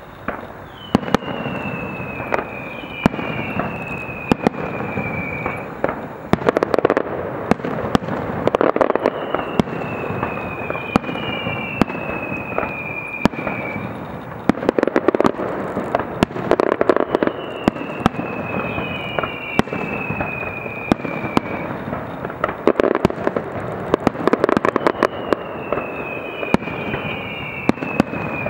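Aerial fireworks display: a dense run of shell bursts, sharp bangs and crackling, with pairs of long falling whistles recurring about every eight seconds.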